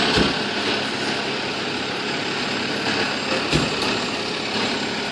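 Fire truck's diesel engine running steadily, with a low thump just after the start and another about three and a half seconds in.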